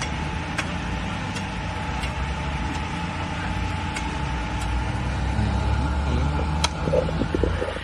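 Machete chopping a green coconut: a series of short, sharp chops, roughly one every half second to second, with the clearest near the end, over a steady hum of road traffic and idling engines.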